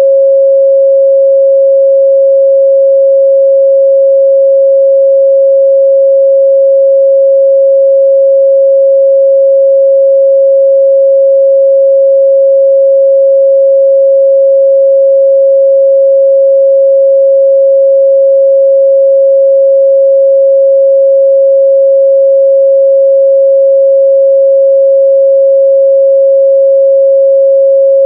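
A steady, loud 545 Hz sine-wave test tone, held at one pitch and level without a break.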